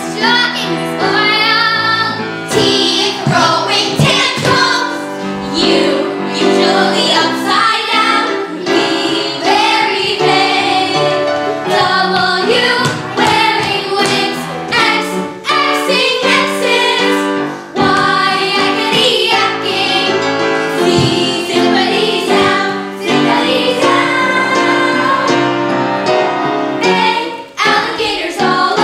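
Children's voices singing a stage-musical song over instrumental accompaniment.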